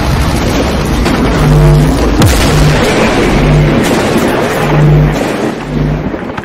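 Cinematic logo-intro sound effect: a loud rush of noise with deep booming pulses about once a second and a sharp crack a little after two seconds in, tailing off near the end.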